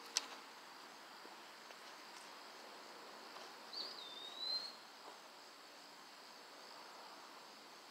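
Faint, steady insect chorus, with a short whistled call about four seconds in and a brief click right at the start.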